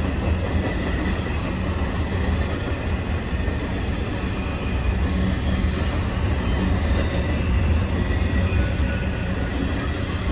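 Intermodal freight train of container and trailer cars rolling steadily past on the rails, a continuous low rumble of wheels on track.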